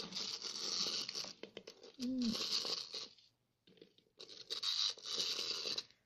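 Clockwork motor of a small plastic wind-up penguin toy whirring, in two stretches separated by a short break a little past halfway.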